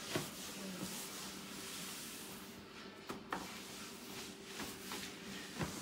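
Quiet kitchen room tone with a low steady hum and a few light clicks and knocks from handling, near the start, about three seconds in and near the end.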